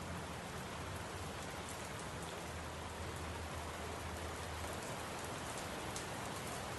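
Steady rain falling, an even hiss at a constant level with no thunderclap.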